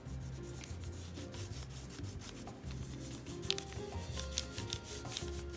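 Quick back-and-forth colouring strokes scratching on paper as feathers are coloured in.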